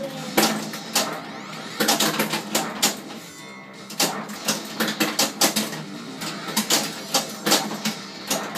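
Williams Swords of Fury pinball machine in play: rapid, irregular clacks and knocks of the ball striking bumpers and targets and of the flippers and solenoids firing.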